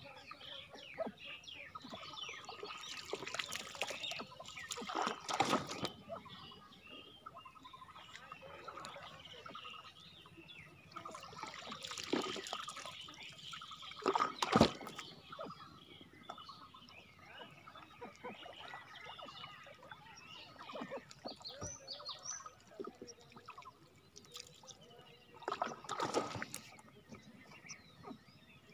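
Floodwater trickling and lapping against a banana-trunk raft, with a few louder splashing swishes and one sharp knock about halfway through.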